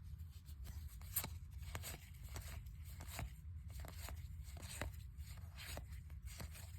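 Paper trading cards being flipped through one at a time, giving faint soft clicks and slides, about two a second.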